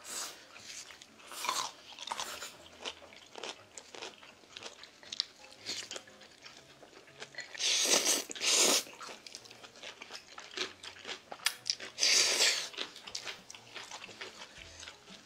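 Close-up eating sounds: instant ramyeon noodles slurped loudly twice, about eight and twelve seconds in, with crunchy chewing of kkakdugi (cubed radish kimchi) in between.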